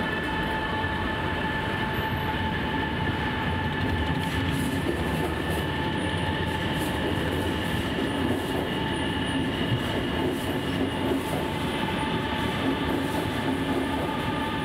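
Shanghai Metro Line 2 electric train moving alongside the platform: a steady whine over rumbling wheels on the rails. From about four seconds in, the wheels click lightly.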